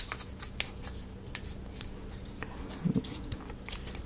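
Small scattered clicks and taps of thin laser-cut plywood kit pieces being handled and pressed together, with a few slightly louder knocks near the end.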